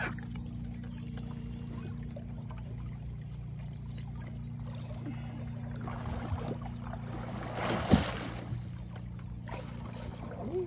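A hooked sturgeon splashing at the surface beside the boat: a surge of water noise builds about six seconds in and peaks in one sharp splash near eight seconds. A steady low hum runs underneath.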